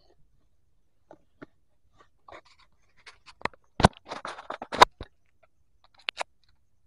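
Camera handling noise: fingers scratching and knocking on the camera body right by the microphone. A cluster of scratches and sharp knocks starts about halfway in, the loudest two about a second apart, with a couple of small clicks near the end.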